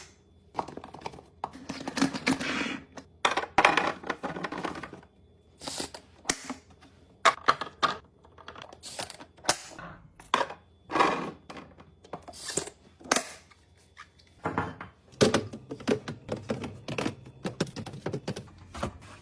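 Food containers and packaging being handled and set down while a fridge is restocked: a run of irregular clicks and thunks, with stretches of rustling packaging.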